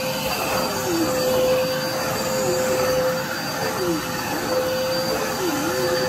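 Red bagless corded vacuum cleaner running over a rug: a steady motor whine over suction noise, with a lower tone that dips and comes back about once a second.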